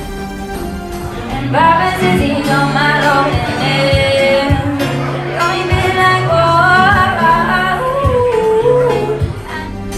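A woman singing to her own acoustic guitar. Her voice comes in about a second and a half in and stops shortly before the end, while the guitar carries on.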